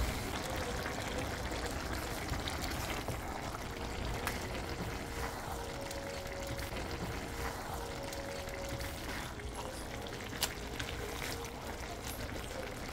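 Long beans and chicken simmering in coconut milk in a pot: a steady bubbling hiss, with a spatula stirring through the food and a couple of sharp clicks against the pot.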